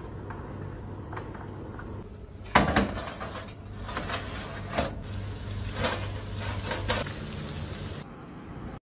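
Kitchen clatter of a metal roasting tray being handled at an oven: one sharp clank about two and a half seconds in, then a few lighter knocks, over a steady low hum.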